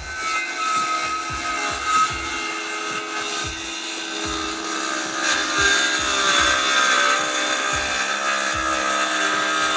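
Cordless power saw cutting through a wooden board: a steady motor whine under the rasp of the blade in the wood, stopping right at the end.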